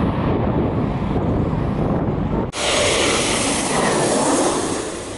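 Wind buffeting the microphone over a low rumble. About two and a half seconds in it cuts abruptly to the loud jet noise of an Embraer E190's turbofan engines as the airliner passes low overhead on landing approach, with a tone that sweeps down and back up as it goes over.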